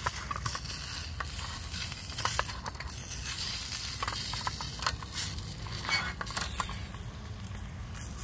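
Sausages frying in a small camp pan on a pocket stove: a steady sizzle with frequent small crackles and pops of spitting fat.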